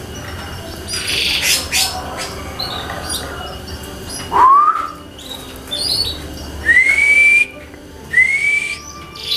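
Domestic canaries calling: short high chirps and trills, then three clear rising whistled notes, the last two longer and higher.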